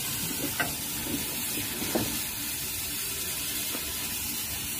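Steady hissing background noise, with a few light knocks, the clearest about half a second and two seconds in.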